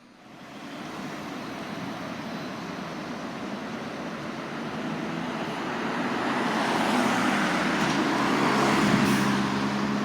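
Fire engine running and rolling on the road: engine drone and road noise that come up in the first second and grow louder from about six seconds in.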